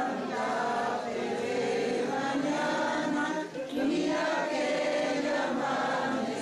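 A group of people singing together, many voices at once, with held, gliding notes.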